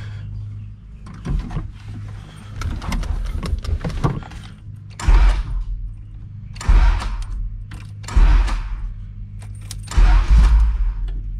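Keys jingling at the ignition of an Acura Integra, then four short bursts of about a second each, the starter cranking the engine over without it catching.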